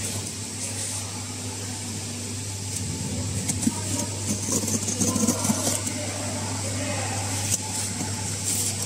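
Scissors slitting the packing tape on a cardboard box, with crackling and scraping of tape and cardboard from about three seconds in as the box is cut and handled, over a steady low machine hum.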